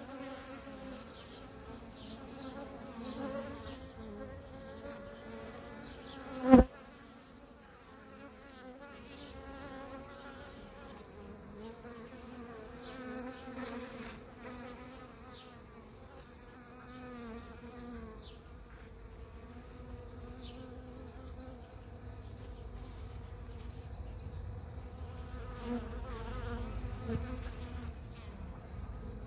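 Honeybee workers buzzing steadily around a newly introduced virgin queen, a wavering hum throughout. A single sharp click about six and a half seconds in, and a low rumble building near the end.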